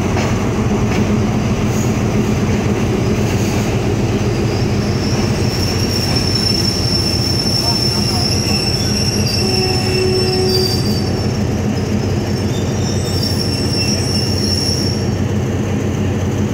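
Passenger coach of a diesel-hauled train rolling slowly into a terminus platform: a steady rumble with a low hum, and a high-pitched steel-wheel squeal that starts about five seconds in and fades out near the end.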